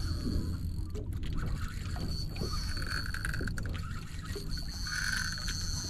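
Fishing boat's engine running with a steady low hum, alongside a thin, steady high-pitched whine and a few faint clicks.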